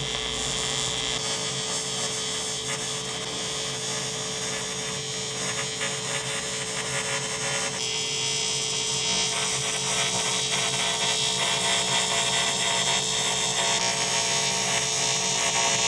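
TIG welding arc on 2 mm AMG aluminium-alloy sheet at about 44 amps, with filler rod fed in: a steady humming hiss that runs without a break.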